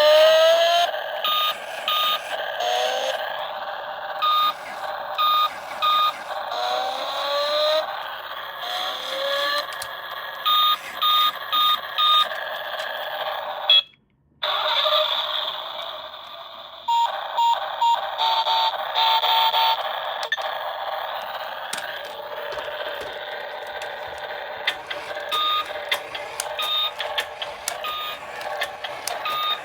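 Electronic sound effects from a toy RC car's sound module: short beeps repeated in quick groups, with rising chirps in the first part. The sound cuts out briefly about halfway through, then comes back with lower-pitched beeps.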